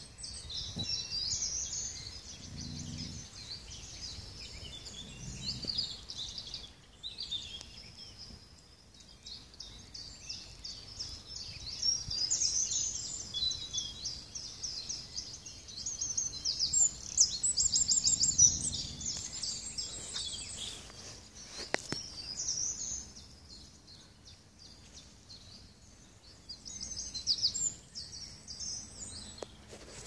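Songbirds singing in spring woodland: a dense run of quick, high trills and chirps, loudest a little past halfway. A few soft low rumbles and one sharp click sit underneath.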